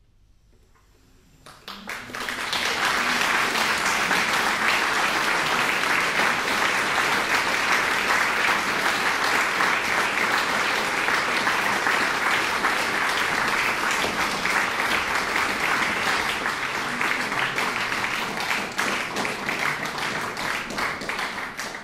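Audience applauding after a concert piece: a short hush, then applause breaks out about two seconds in and carries on steadily and densely.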